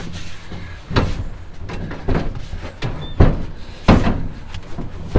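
A bucket seat knocking against the bare metal cab of a Ford Model AA truck as it is shifted into place: four sharp knocks about a second apart, the third the loudest.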